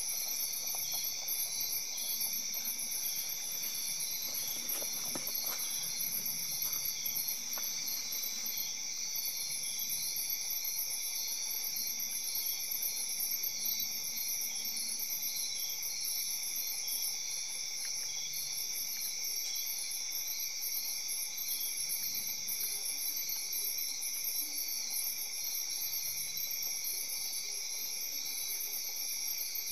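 Insect chorus: several insects trilling steadily together at different high pitches, the highest one pulsing evenly, with no break.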